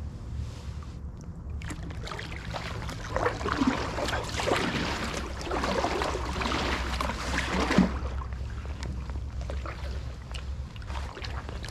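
Canoe paddle strokes through floodwater: water swishing and gurgling around the blade, loudest in the middle few seconds, over a steady low rumble.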